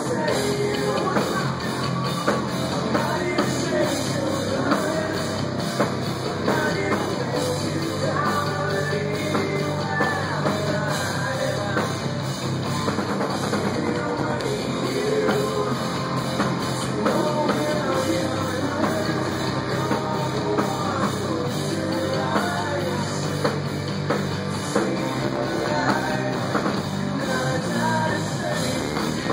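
Live rock band playing through a club PA: drum kit, bass guitar and electric guitar, with singing.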